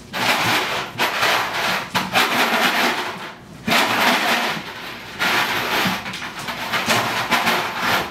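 Empty plastic jug pushed and dragged across a vinyl tile floor by a puppy: a hollow scraping clatter in long bursts with brief lulls between them.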